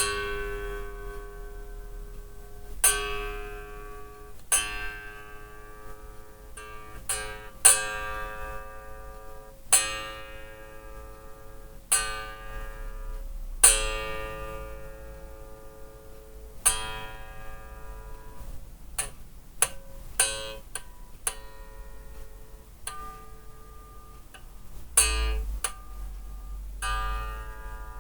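Unamplified electric bass guitar, freshly restrung, plucked one note at a time and left to ring while being tuned by ear; the notes come at uneven gaps, a few in quick succession. The new strings are not yet holding the note well.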